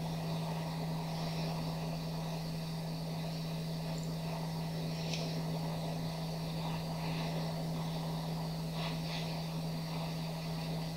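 YCS R1 Pro hot air rework station blowing steadily from its nozzle onto an IC, a steady rush of air over a low hum, while the solder reflows to seat the chip. A few faint ticks come about halfway through and near the end.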